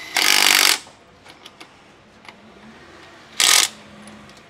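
Cordless impact wrench hammering a wheel's lug nuts tight: a half-second burst near the start and a shorter one about three and a half seconds in.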